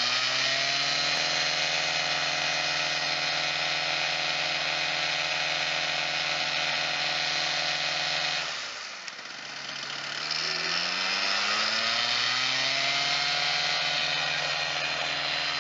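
Powered hang glider's engine and propeller running steadily at high revs. About eight and a half seconds in it is throttled back, the pitch dropping and the sound fading, then the revs climb back up over the next few seconds.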